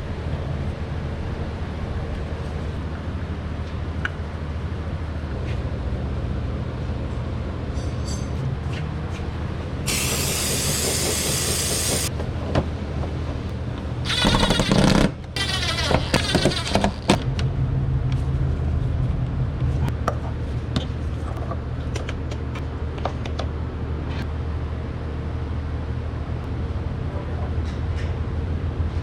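Steady low mechanical hum in an auto shop, broken twice by loud bursts from a pneumatic air tool: one about two seconds long near the middle, then a choppy run of short bursts a few seconds later. Light clicks and knocks of tool work fall in between.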